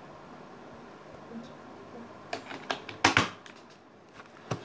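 Sharp plastic clicks and clatter of a pen being handled against a plastic stationery case full of pens and pencils: a quick run of clicks a little past two seconds in, the loudest around three seconds, and one more near the end.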